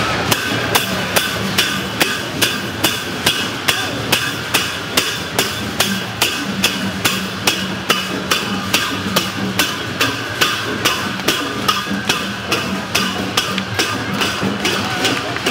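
Dhime drum band playing: sharp, evenly spaced strikes of small hand cymbals, about three a second, over the drums.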